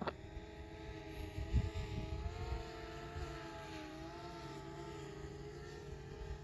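Fimi X8 Mini quadcopter's propellers humming in flight, a steady multi-tone drone whose pitch wavers slightly as the motors adjust, over low wind rumble on the microphone with a couple of gusts early on.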